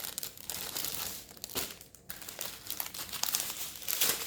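Small plastic bags of diamond painting drills crinkling as they are handled, in irregular rustles with a brief pause about two seconds in.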